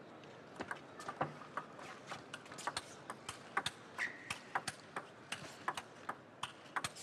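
Table tennis ball clicking back and forth off the rackets and table in a rally, sharp pocks at about two to three a second.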